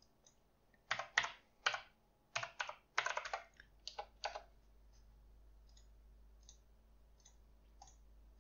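Typing on a computer keyboard: a quick run of keystrokes for a few seconds, then a few faint, spaced single clicks.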